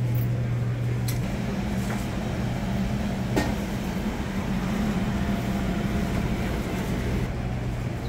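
Steady low mechanical hum of a cafeteria serving area, with a couple of faint sharp clinks, the clearest about three and a half seconds in.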